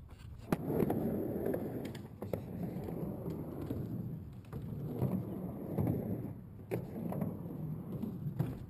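Skateboard dropping in, its wheels landing on the ramp with a sharp clack about half a second in, then rolling over a mini ramp in repeated surges of rumble with a few more sharp knocks.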